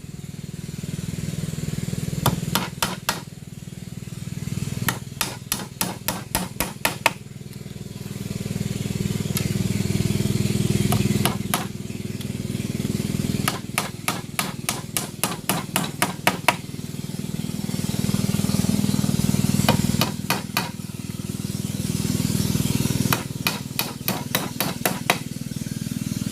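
Hammer blows on a bamboo build, in quick bursts of several strikes at about five a second. Between the bursts a steady low hum swells for a few seconds each time.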